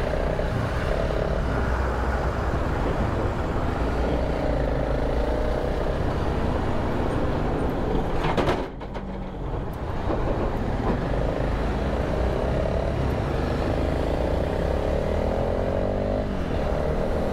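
Honda CRF300 Rally motorcycle engine running at low speed in slow, heavy traffic, mixed with the diesel engines of container trucks alongside. The noise is steady, apart from a short drop about halfway through.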